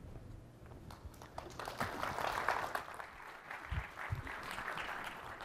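Audience applauding, a light spread of clapping that swells about two seconds in and then tapers off. Two short low thumps come near the end.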